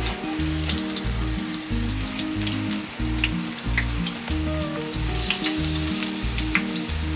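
Yuba-coated cutlassfish pieces deep-frying in hot oil in a wok, a steady sizzle, with short clicks of chopsticks working the pieces. Background music with a steady bass line runs underneath.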